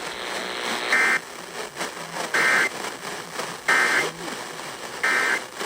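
Emergency Alert System end-of-message digital data bursts over radio: four short, identical two-tone buzzes a little over a second apart, signalling that the alert has ended, over faint radio hiss.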